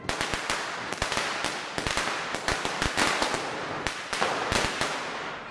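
Firecrackers going off: a sudden start, then a rapid, irregular volley of sharp bangs over continuous crackling.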